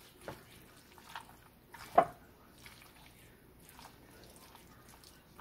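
A spoon stirring creamy ranch pasta salad in a bowl: faint wet squelching, with one sharper tap about two seconds in.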